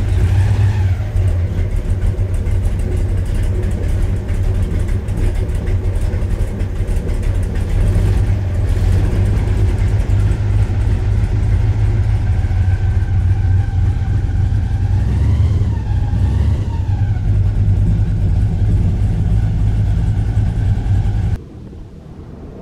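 Airboat engine and propeller running loud and steady at cruising speed, then dropping suddenly to a much quieter level near the end as the boat slows.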